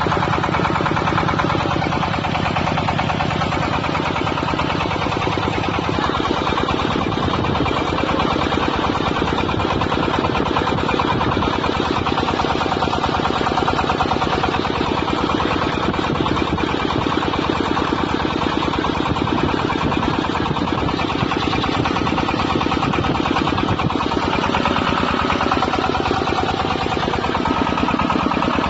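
The 25 HP diesel engine of a YETUO-150D portable water well drilling rig running steadily with a rapid, even firing beat. Its note shifts slightly about seven seconds in and again near the end.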